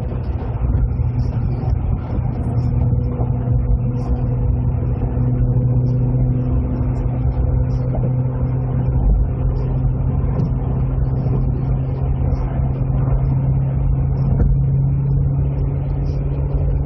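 2005 Corvette C6's 6.0-litre LS2 V8 running at a steady cruise, a constant low drone that rises slightly in pitch near the end.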